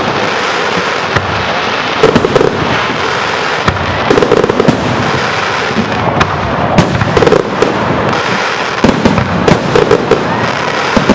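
Aerial fireworks shells bursting: many sharp bangs and crackles at irregular intervals, over a steady background noise.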